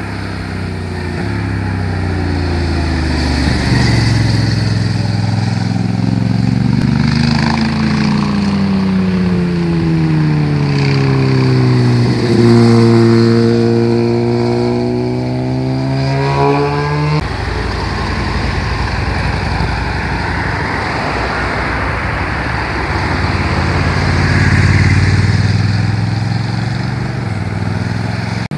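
Motorcycle engines riding past one after another through the bends, the engine note gliding up and then falling in pitch. About 17 seconds in the sound changes abruptly to a rougher, less even engine noise that swells again near the end.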